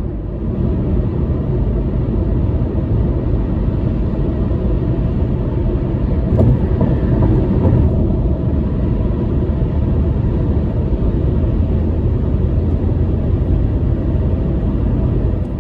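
Steady low road and engine rumble inside a car's cabin while driving at highway speed, swelling briefly about six seconds in.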